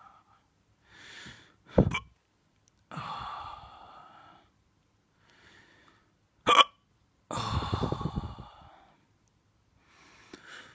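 A person, drunk, hiccuping loudly twice about five seconds apart. Each sharp hiccup is followed by a long breathy exhale.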